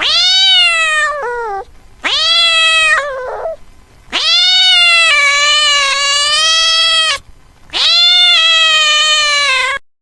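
A cat meowing: four long, drawn-out meows, each rising at the start and sliding down at the end, the third the longest at about three seconds.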